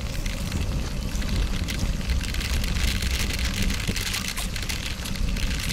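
Wind rushing over a bike-mounted action camera's microphone at about 24 mph, over the steady crackle of knobby bicycle tyres rolling on packed gravel strewn with small rocks.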